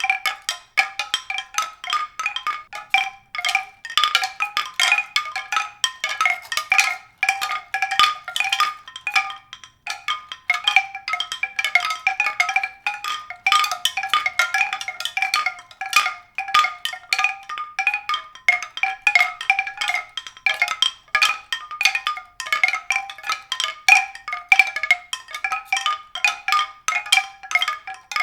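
Tuned percussion: a continuous, irregular stream of short struck, bell-like notes, several a second, on a small set of recurring pitches.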